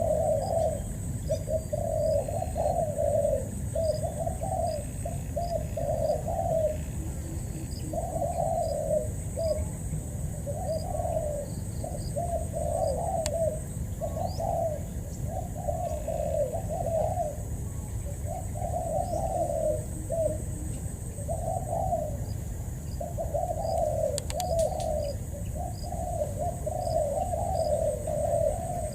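Spotted dove cooing, phrase after phrase with only short gaps.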